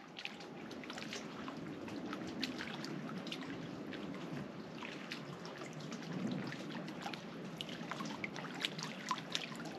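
Small waves lapping at a lake shore: a steady low wash with many little irregular splashes and trickles.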